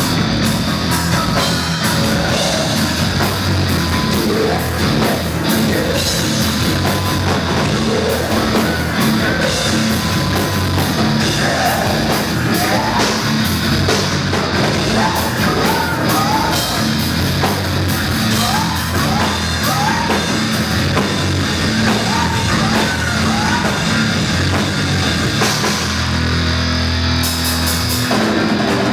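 Live hard rock band playing loud, with distorted electric guitars, bass and drum kit, and a singer's voice over them. A strong low bass note is held briefly near the end.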